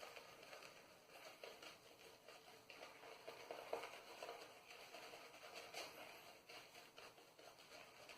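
Faint, irregular soft patter and crackle of an Omega boar shaving brush being swirled in a tub of shaving soap. The lather is still dry and pasty and needs more water.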